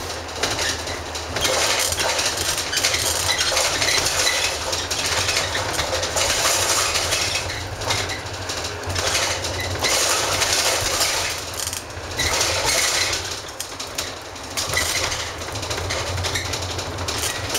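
Cabin noise aboard a moving 2010 Chevrolet 4500 / ARBOC SOM27D cutaway bus: its Duramax 6.6 L V8 turbodiesel and tyres give a steady low rumble, while the body and interior fittings rattle and knock over the road surface.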